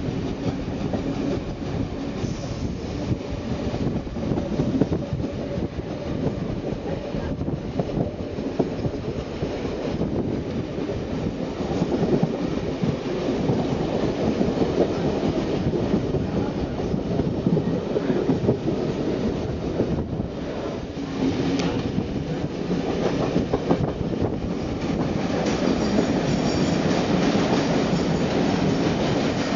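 Carriage wheels of a steam-hauled passenger train rolling and clattering over pointwork at low speed, heard from an open carriage window, with a dense rumble and many short knocks. High-pitched wheel squeal joins in near the end.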